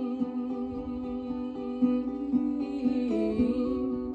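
Acoustic guitar playing an instrumental passage of plucked notes, each one ringing on after it is struck.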